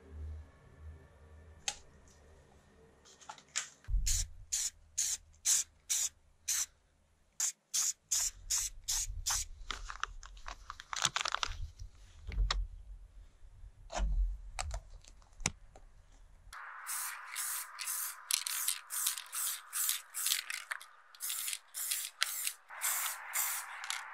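Aerosol spray can hissing in many short bursts, two or three a second, as a metal part is spray-coated. About two-thirds of the way in, the bursts come closer together over a steady hiss.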